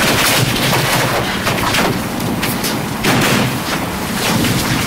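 Plastic clicks, knocks and scraping of toner cartridges being handled and pulled out of a Xerox Phaser 6000 colour laser printer, over the rustle of a gloved hand close to the microphone.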